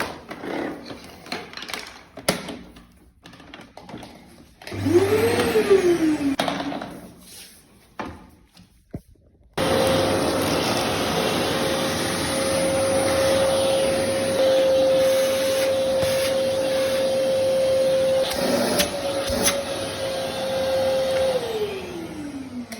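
Vacuum cleaner with a newly fitted 2200 W motor: a short spin-up and wind-down about five seconds in, then switched on with a steady whine for about twelve seconds, and near the end switched off, the whine falling in pitch as the motor spins down.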